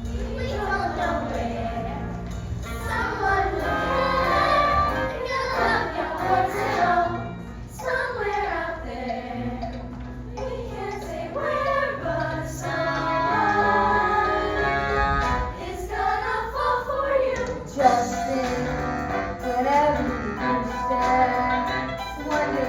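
Voices singing a musical-theatre song over an instrumental accompaniment with held bass notes.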